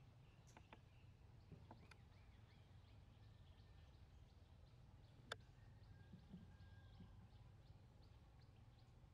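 Near silence: faint outdoor ambience with a steady low hum and faint high chirps repeating evenly, a few times a second. A few soft clicks come early on, and one sharper click comes a little past halfway.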